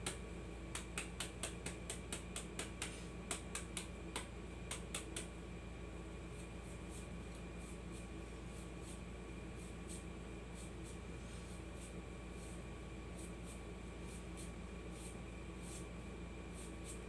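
A knife chopping slivers off a fresh bamboo shoot held in the hand: a quick run of sharp chops, about three a second, which eases off about five seconds in into fainter, scattered cuts.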